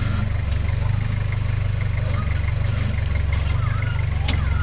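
Modified Toyota Hilux 4x4's engine running steadily at low revs as it crawls slowly over boulders, with one sharp click near the end.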